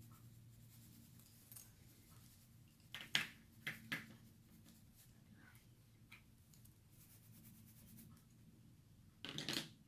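Quiet room with a few light taps of pencils and paper about three and four seconds in, and a short scratchy rustle near the end.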